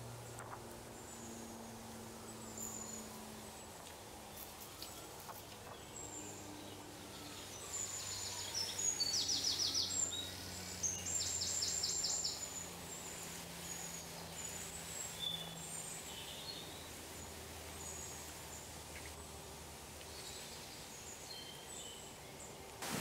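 Outdoor ambience of birds chirping and calling, with two quick rapid trills a little past the middle, over a faint low hum.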